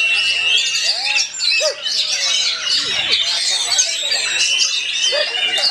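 Oriental magpie-robin (kacer) singing rapid, varied chirps and whistles amid many other birds singing at once, a dense unbroken chorus.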